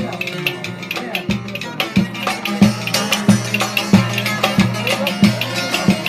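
Instrumental passage of Turkish folk music: a steady drum beat of about three strokes every two seconds under quick plucked string notes, with no singing.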